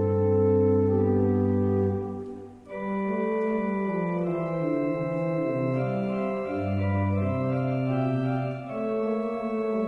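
Church organ playing held chords. The chord releases about two and a half seconds in, with a brief dip, and a new phrase begins over a moving bass line.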